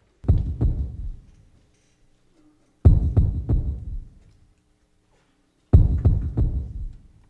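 Three groups of deep, booming percussion hits, about three hits to a group, each group dying away in reverberation before the next comes roughly three seconds later.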